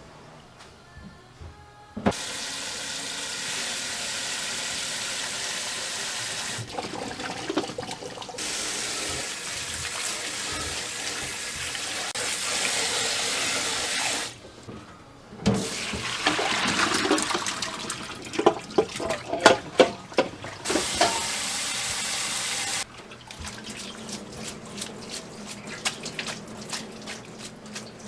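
Water running hard from a kitchen faucet, turned on and off three times, with metal clattering in the third run.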